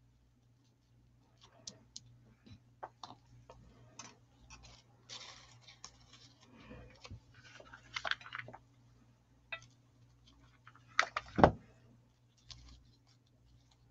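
Faint handling noises of ribbon and paper being worked onto a craft pumpkin: soft rustling and small scattered clicks, busiest around the middle. A couple of sharp knocks on the table near the end are the loudest sounds.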